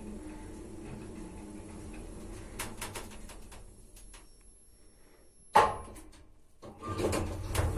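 Kone passenger lift with an EcoDisc machine arriving at a floor: the car hums steadily, a few clicks come as it levels and stops, and a sharp knock about five and a half seconds in rings briefly. About a second later the car doors start sliding open with a rumbling rattle.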